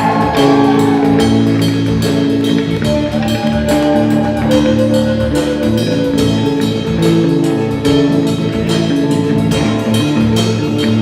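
Instrumental music: sustained held notes over a drum kit keeping a steady beat.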